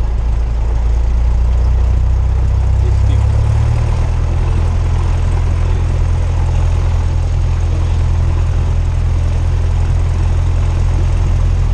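Cessna 172R's four-cylinder Lycoming IO-360 engine and propeller droning, heard from inside the cabin. About three and a half seconds in, the drone shifts to a higher pitch and holds there.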